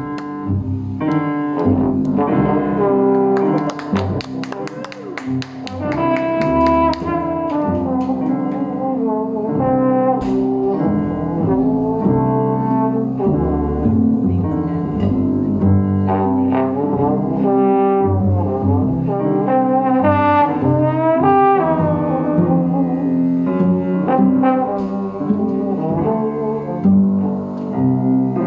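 Live jazz: a trombone plays a flowing melody over a double bass accompaniment.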